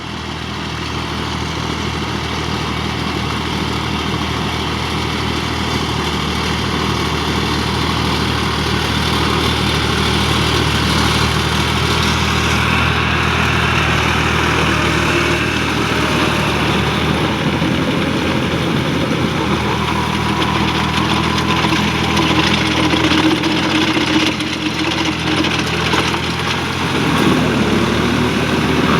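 Farm tractor's diesel engine running steadily, growing louder over the first several seconds.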